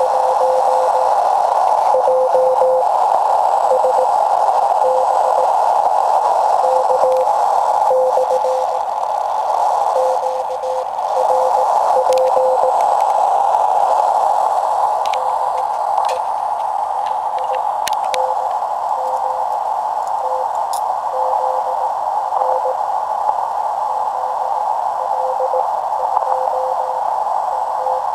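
A weak Morse code signal on a shortwave amateur radio receiver: a faint keyed tone in dots and dashes under steady band hiss through a narrow CW filter, with a few clicks around the middle.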